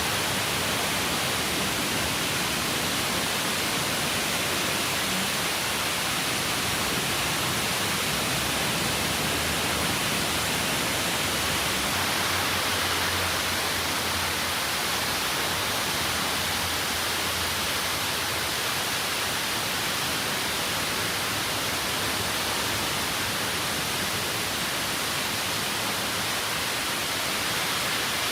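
Waterfall: a steady rush of falling water, with a faint low rumble for a few seconds midway.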